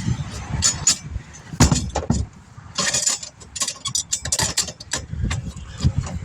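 Tools and metal hardware clinking and clanking as they are handled, in many short sharp strikes, over the steady noise of passing interstate traffic.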